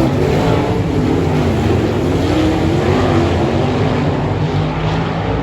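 Sprint car V8 engines racing on a dirt oval: several cars running together, their pitch rising and falling as they work through the turns.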